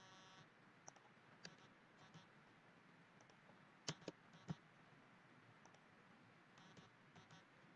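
Near silence with a few faint, scattered clicks of a computer mouse and keyboard, the loudest a quick run of three about four seconds in.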